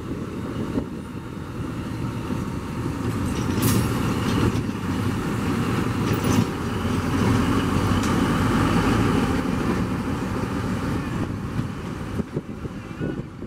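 Central Romana diesel switcher locomotive rolling past with its engine running, growing louder as it draws level about halfway through and easing off near the end. A few sharp clicks are heard in the first half.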